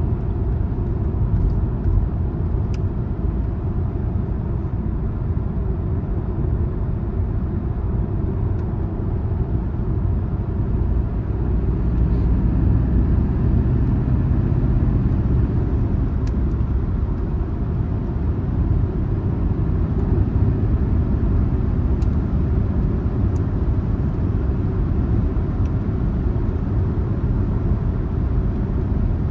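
Car driving on the road: a steady low rumble of tyre and engine noise, a little louder from about twelve seconds in.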